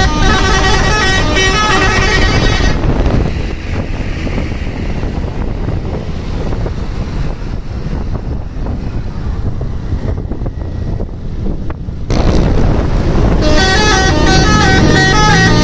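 Indonesian bus 'telolet' multi-tone horn playing a stepping melody of several notes, which stops about three seconds in. About nine seconds of steady traffic noise follow without the horn, and the horn melody starts again near the end.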